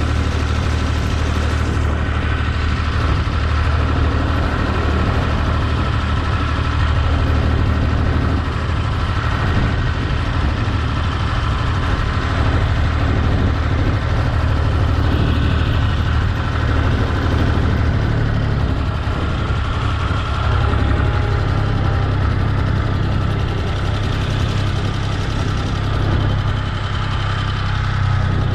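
Tractor engine running steadily, with a faint steady whine on top, while pulling a mulcher through a vineyard to chop vine prunings.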